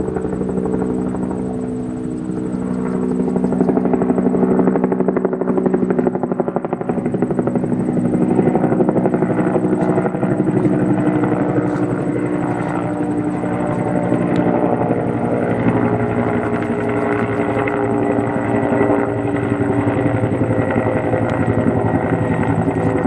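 An engine running steadily, with a fast, even pulse and a steady hum.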